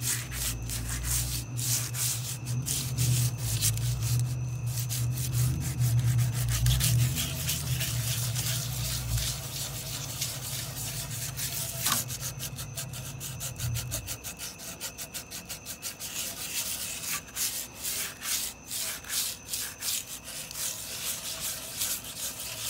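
Wet, crumpled aluminium foil scrubbed rapidly back and forth on a chrome headlight bucket, a fast, steady run of scraping strokes that takes the surface rust off the chrome. A low hum runs under the first part and stops about two thirds of the way through.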